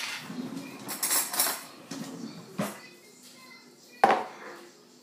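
Metal spoon clinking and knocking against jars and a plastic blender cup while almond butter is scooped, a handful of sharp knocks with the loudest about four seconds in.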